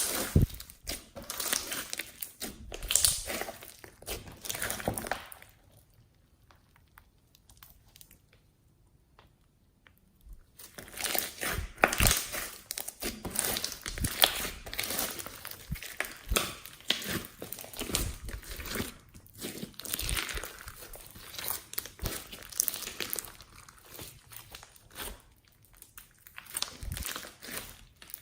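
Slime being squeezed, stretched and folded by hand, crackling and popping as trapped air is pressed out. It stops for about five seconds in the middle, then resumes.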